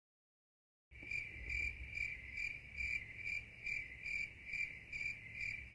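Cricket chirping, likely a sound effect added in editing: a high chirp repeated evenly about two and a half times a second. It starts after about a second of dead silence.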